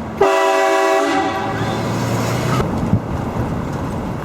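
Train horn sounding one loud chord-like blast of several steady tones. It comes in sharply about a quarter second in, is strongest for about a second, then tails off and stops about two and a half seconds in.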